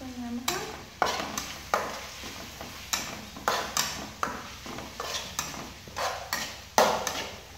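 Metal wok spatula scraping and knocking against a steel wok as green vegetables are stir-fried, in quick irregular strokes about two a second. The loudest stroke comes near the end.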